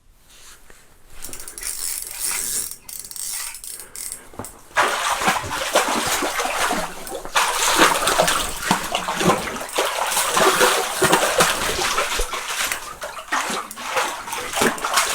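Water splashing and rushing in a choppy, uneven wash that grows louder about five seconds in.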